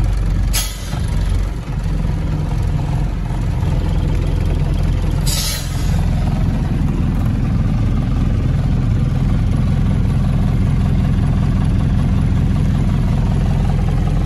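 Vehicle engine running steadily while driving along a dirt road, heard from inside the cab, getting a little louder about six seconds in. Two brief hissing noises stand out, about half a second in and about five seconds in.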